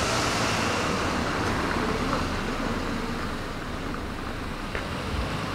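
Road traffic: a vehicle passes close by right at the start, its tyre and engine noise easing off over the next couple of seconds into a steady street hum.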